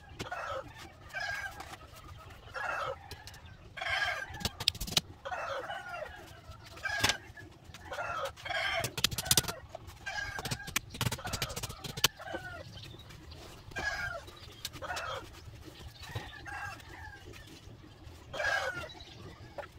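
Chickens clucking, with roosters crowing, repeated calls throughout. A few sharp knocks come from the bamboo frame being handled.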